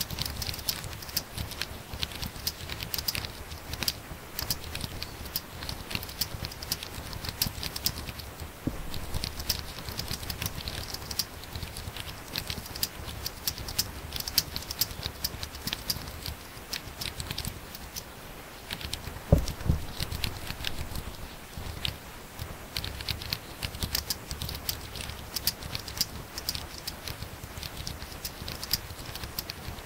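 Laptop keyboard being typed on very fast: a rapid, continuous patter of key clicks with a few brief pauses. About two-thirds of the way through there is one louder thump, the loudest sound here.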